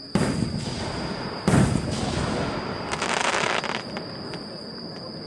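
Aerial firework shells bursting: two booms about a second and a half apart, the second the loudest, each trailing off, then a spell of crackling.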